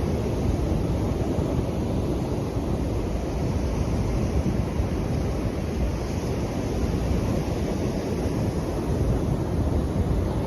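Waves washing in steadily, with wind buffeting the microphone in a low, even rumble.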